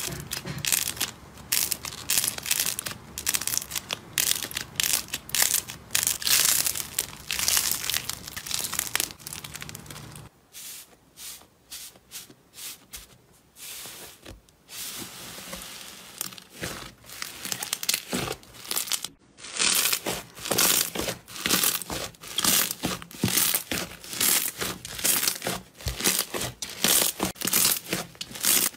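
Hands squeezing and kneading slime, giving dense runs of small sticky crackles and pops. About a third of the way in the crackling stops and the sound turns quieter for several seconds, then the crackles come back thick as a soft, fluffy rainbow slime is pressed and folded.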